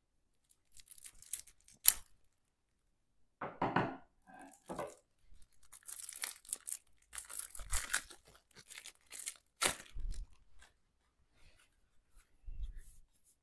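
Plastic wrapping being torn and peeled off a pack of game cards by hand, crinkling in uneven bursts, with a sharp snap about two seconds in and a few dull bumps of handling.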